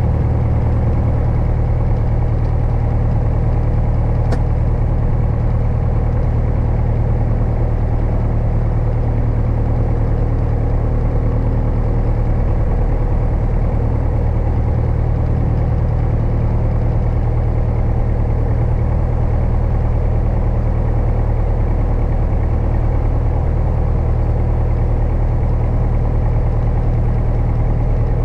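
Single-engine light aircraft's piston engine idling steadily with the propeller turning, heard from inside the cockpit as an even, low hum.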